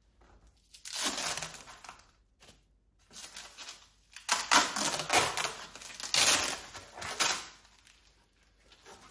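Bike packaging being unwrapped by hand: crinkling, rustling and tearing of wrapping material in a short burst, then a longer run of crinkling and tearing in the middle.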